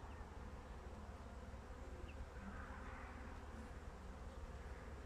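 Honeybees buzzing steadily and faintly around an open hive.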